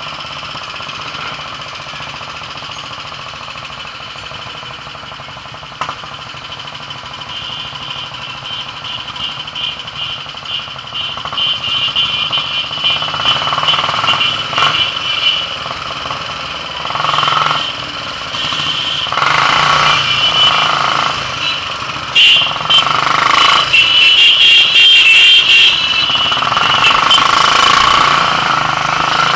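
Royal Enfield single-cylinder motorcycle engine running while riding through town traffic, with noise on the microphone. From about twelve seconds in it gets much louder, with uneven bursts of sound.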